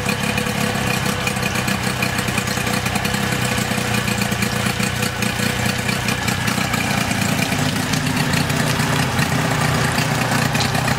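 Nissan 8 hp two-stroke long-shaft outboard motor running steadily.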